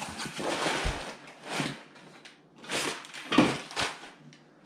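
Cardboard shipping box being opened by hand, its flaps and packing paper rustling and crinkling in several bursts, with a sharp knock about three and a half seconds in.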